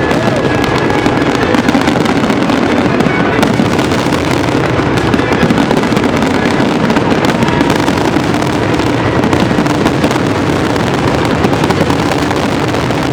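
Fireworks bursting in rapid, unbroken succession: a dense, continuous run of bangs and crackles with no pauses.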